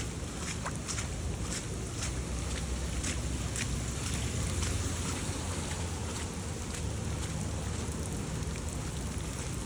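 Steady rain with wind rumbling on the microphone, and scattered sharp ticks throughout.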